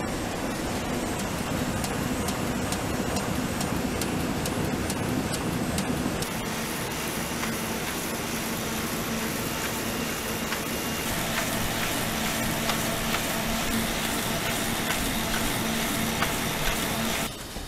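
Industrial paper-converting machinery running: a printing press with rapid clicking, then, from about six seconds in, a sheet-fed die-cutting machine running with a steady mechanical hum.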